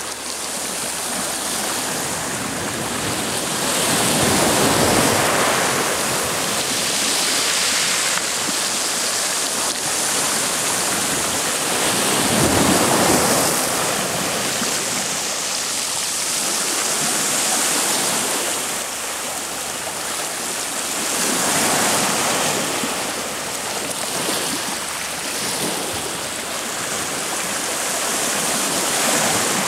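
Water rushing and splashing past a moving boat, swelling and easing every few seconds.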